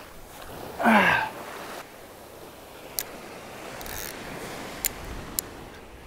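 Surf washing onto the beach under wind on the rod-mounted camera's microphone. About a second in comes a man's short grunt, falling in pitch, the loudest sound here; later come three sharp clicks from the rod and spinning reel being handled.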